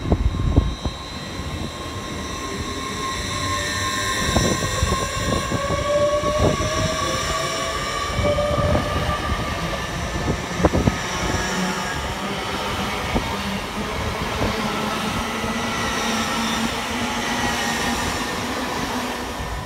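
LNER Class 801 Azuma electric train pulling out and gathering speed past the platform. Its motor whine rises slowly in pitch over a steady rumble, with scattered sharp clicks from the wheels over rail joints.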